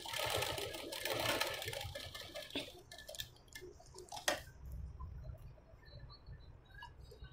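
Domestic straight-stitch sewing machine running for about two and a half seconds, a fast, even rattle of stitching along a blouse neckline. Then the fabric is handled, with a few small ticks and one sharp click about four seconds in.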